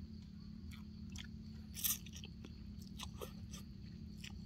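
Someone eating rice noodle soup: wet chewing and mouth smacks, with one louder slurp of noodles a little under two seconds in.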